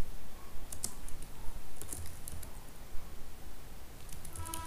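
Computer keyboard being typed on: a few short runs of keystrokes separated by pauses.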